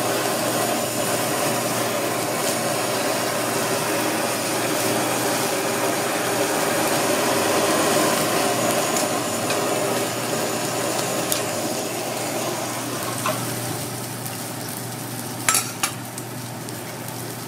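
A thick pork steak sizzling on a teppanyaki griddle under the steady hiss of a handheld butane blowtorch searing its surface, which eases off about three-quarters of the way through. Two sharp taps come near the end.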